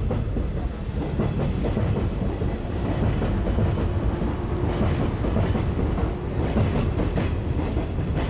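Train running on rails: a steady low rumble with irregular clattering throughout.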